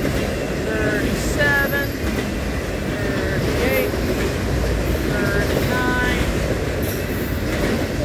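Freight train of autorack cars rolling past, a steady rumble of steel wheels on the rails, with several short high squeals from the wheels about one, three and a half, and five to six seconds in.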